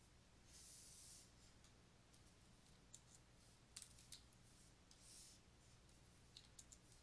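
Near silence: faint room hiss with a few soft, scattered clicks.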